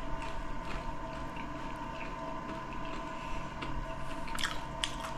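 A person chewing a bite of fried king bolete mushroom with the mouth closed: soft, wet, irregular chewing sounds, with a few sharper clicks near the end, over a faint steady hum.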